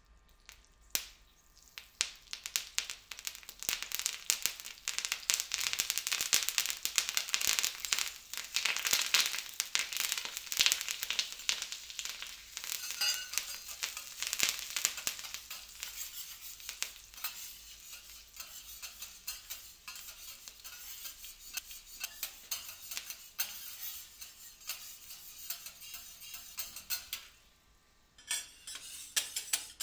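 Food sizzling on a hot teppanyaki griddle, a dense crackling hiss with many small sharp clicks. It starts about a second in, is loudest in the first half and eases off later, then cuts out briefly near the end before starting again.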